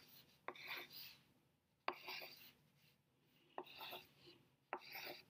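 Faint sound of a pencil on paper drawing small circles. There are four separate strokes, each starting with a sharp tick as the lead touches down, followed by about half a second of scratching.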